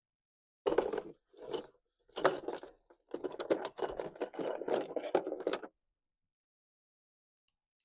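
Metal hand tools and parts clattering and scraping in four bursts, the last about two and a half seconds long and full of quick clicks.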